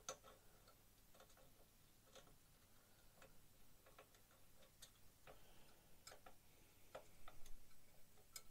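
Near silence broken by faint, irregular small clicks and taps: metal tweezers and fingers handling the plastic parts of a kit's main undercarriage leg as it is worked into place.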